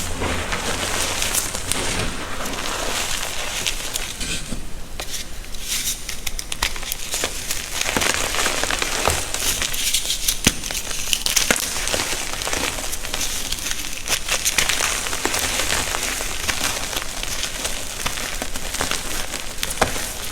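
Gym chalk being crushed and crumbled, a continuous dense crunching crackle of many sharp little snaps, thinning out briefly a few seconds in.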